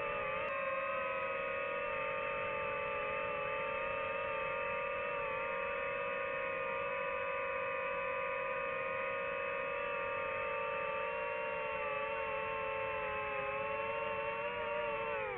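DJI FPV drone's motors and propellers whining steadily as it flies, the pitch wavering slightly and dipping near the end as the throttle eases.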